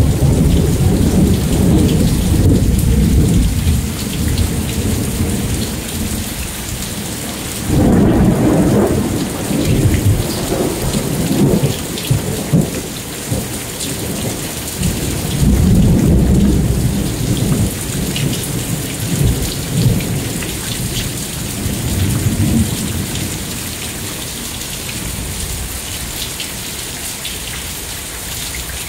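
Thunder rolling over steady rain: one long rumble at the start, another about eight seconds in and a third about sixteen seconds in, each rumbling for several seconds before fading. Rain hisses throughout.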